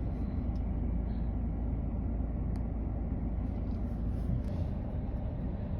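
Tractor engine running steadily at a low rumble while mowing.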